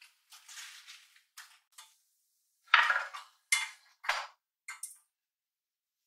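Wicker basket of fresh perilla leaves handled and shaken over a kitchen sink: a run of short rustles and knocks, the three loudest about halfway through.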